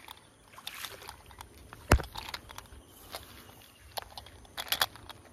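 Scattered rustling and scraping as a gloved hand works through grass. A single sharp knock about two seconds in is the loudest sound.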